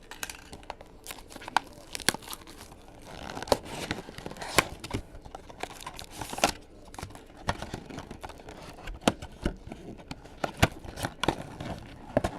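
Packs of sports trading cards being opened by hand: wrappers tearing and crinkling, with many sharp clicks and snaps as the cards are handled.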